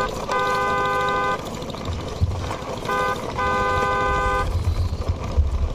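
Car-horn beeps, a short toot followed by a longer one of about a second, heard twice about three seconds apart.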